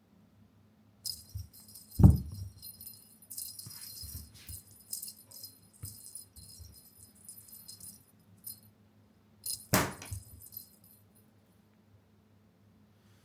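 Small bell jingling and rattling in irregular bursts, with a loud thump about two seconds in and another near ten seconds.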